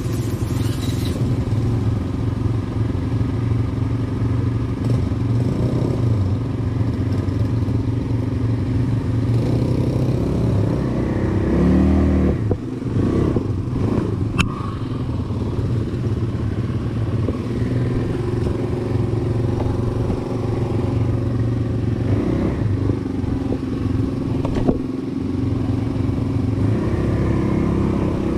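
ATV (quad bike) engine running steadily at low trail speed. It revs up with a rising pitch about twelve seconds in, then drops back.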